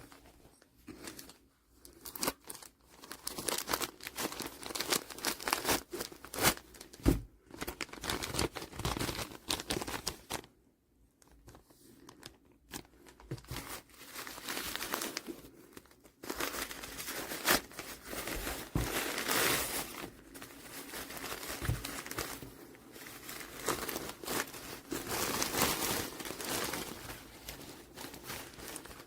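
Irregular crumpling and crinkling of material being handled, in uneven rustling spells with short clicks, with brief pauses.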